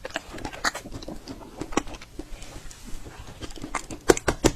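Close-miked mouth sounds of eating a small jelly: wet smacking and chewing clicks at an uneven pace, with two louder smacks near the end.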